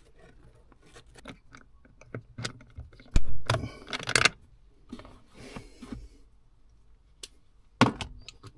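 Small metal parts clinking and rattling as a bolt and nut are worked by hand onto a T4 clutch repair bracket, with a louder clatter about three to four seconds in and a sharp knock near the end.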